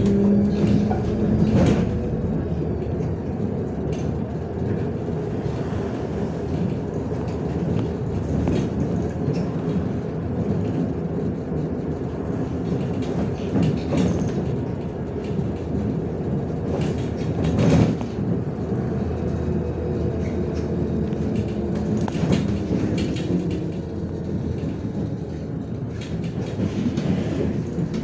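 Inside a MAZ-105 city bus under way: steady engine and road rumble with rattles and knocks from the body, the loudest knock a little past halfway.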